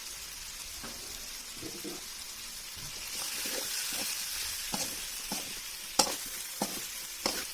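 Chicken and spice masala sizzling in oil in a kadai while a spatula stirs it, scraping and knocking against the pan now and then. The sizzle grows louder about three seconds in.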